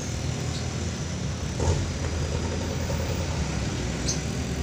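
Steady low mechanical hum and rumble, engine-like, with a single short click about a second and a half in.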